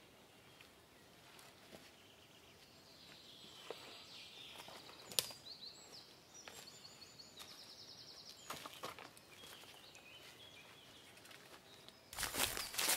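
Woodland birds singing, with chirps and short trills, and a couple of sharp clicks in the middle. About a second before the end, loud footsteps crunching through undergrowth start.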